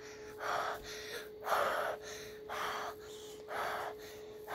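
Heavy breathing close to the microphone, in and out with a strong breath about once a second, over a faint steady hum.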